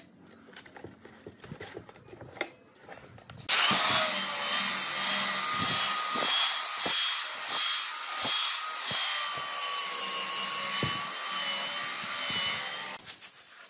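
Handheld belt sander sanding the face of a hardwood slab. It starts about three and a half seconds in, runs steadily with a high whine over the rasp of the belt on the wood, and stops shortly before the end. Before it starts there are light clicks and knocks as the sander is handled and its sanding belt fitted.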